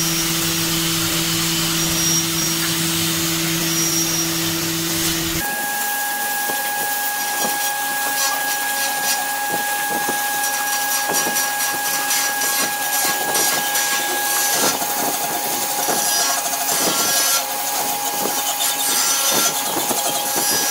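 Small handheld angle grinder with a sanding disc sanding a wooden stool body: a steady motor whine over the scratch of abrasive on wood. About five seconds in the whine changes abruptly to a higher tone, with a busier scraping texture.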